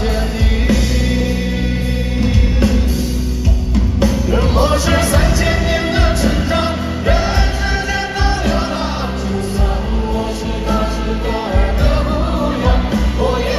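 Live concert music: a band playing, with singing over it.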